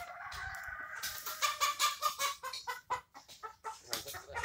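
Chicken clucking: a drawn-out call in the first second, then a quick run of short clucks, about four or five a second.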